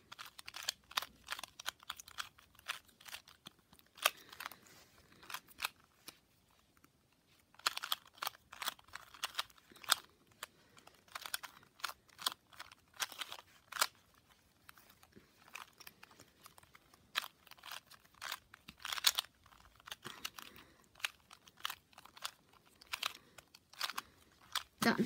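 2x2 Rubik's cube being turned quickly through a solve: rapid clicking and clacking of the plastic layers in quick runs, with a few short pauses.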